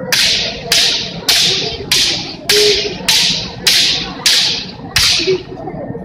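Bamboo shinai cracking together in a steady rhythm: nine sharp strikes about 0.6 s apart, each followed by a short echo of the gymnasium, stopping about a second before the end. The pattern is that of kirikaeshi, left-and-right head strikes received on the partner's upright shinai.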